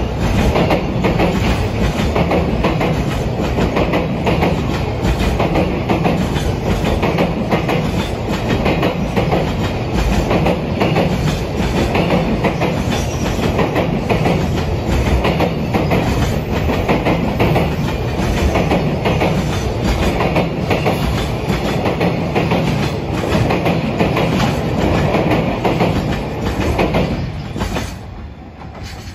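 A freight train of container wagons hauled by an electric locomotive rolls past close by, its wheels clicking steadily over the rail joints. The sound falls away sharply near the end as the last wagons go by.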